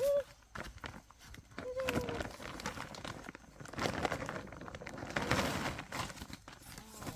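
Rustling and crinkling with scattered clicks and crunches, and two brief pitched calls: one at the very start and one about two seconds in.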